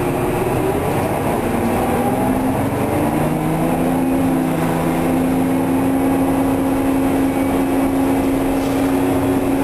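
Detroit Diesel 6V92TA two-stroke V6 diesel and ZF HP590 automatic transmission of a 1990 Orion I transit bus, heard from inside the cabin as the bus pulls away. The engine pitch rises for about three seconds, the transmission shifts up, and the bus then runs on at a steady pitch.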